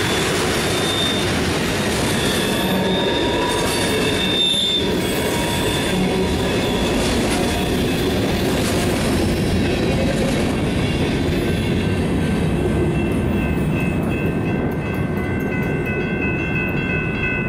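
Freight cars, tank cars and covered hoppers, rolling past on the rails with a steady rumble and clatter and some high wheel squeal early on. Toward the end the last cars clear and a grade-crossing bell is left ringing steadily.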